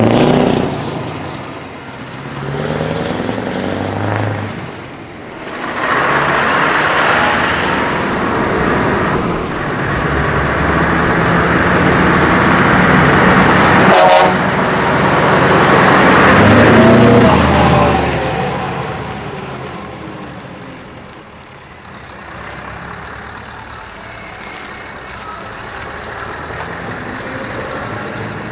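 Scania V8 trucks with open-pipe exhausts pulling away one after another, the engines rising and falling loudly as each revs and passes, then quieter after about two thirds of the way through. A horn sounds around the middle.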